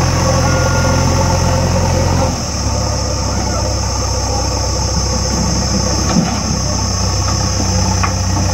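Diesel engine of a JCB backhoe loader running steadily close by while it hauls a front bucket of earth to fill a washout; the engine note drops to a lower pitch about two seconds in.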